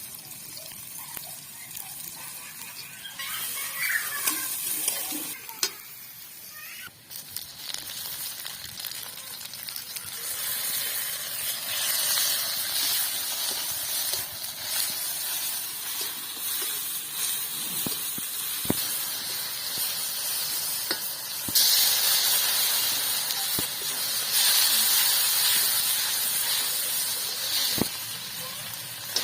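Food frying in hot oil in a cooking pan: a steady sizzle with stirring and a few knocks, which swells louder about two-thirds of the way through and again near the end.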